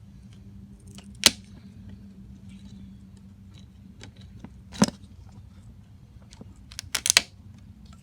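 Hands working an oil drain hose onto the mower's drain valve fitting, with a few sharp clicks and knocks: one about a second in, one near the middle and a quick cluster near the end, over a faint steady hum.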